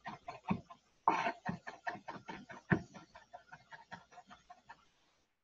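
Chef's knife rapidly chopping garlic on a wooden cutting board: quick knocks of the blade on the wood, about six a second, with a couple of harder knocks, stopping near the end.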